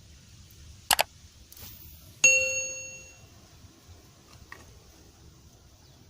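Two quick clicks, then a single bright metallic ding that rings on for about a second as it fades.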